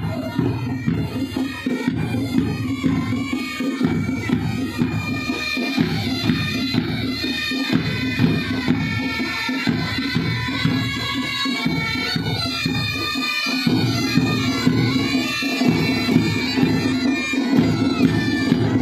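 Bagpipes of a marching pipe band playing a tune together over a steady drone.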